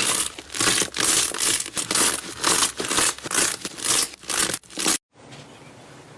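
Slime being squeezed and pressed by hand, a run of crackly, crinkling squishes about two a second, cut off suddenly about five seconds in and followed by a faint hiss.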